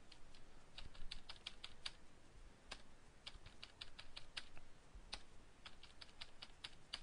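Computer keyboard being typed on: faint key clicks in quick runs of several strokes at a time, with short pauses between the runs, as the same characters are entered over and over.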